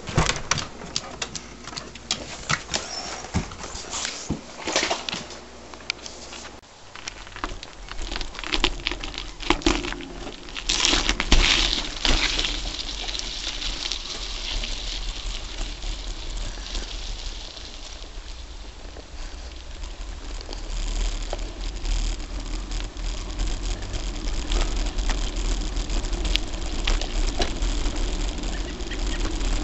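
Knocking and rattling from a handlebar-mounted camera as a Gary Fisher Tassajara mountain bike is handled. From about seven seconds in comes a steady low rumble of the bike rolling over a dirt and gravel road.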